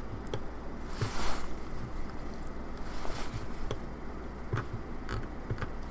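A few faint clicks from a computer keyboard and mouse over a steady low electrical hum, with two brief soft rushes of noise about a second in and again near three seconds.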